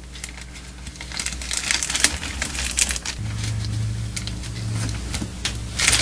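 Plastic tarp crinkling and rustling under hands as a T-square is shifted across it, in irregular crackles that get louder near the end.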